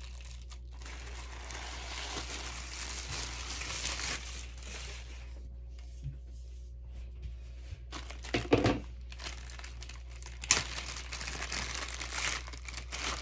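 Plastic packaging crinkling and rustling as boxed accessories are handled and unwrapped, with two sharp clicks in the second half.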